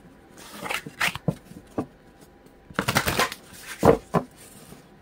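An oracle card deck being handled and shuffled by hand: a series of irregular card rustles and taps, busiest around the middle.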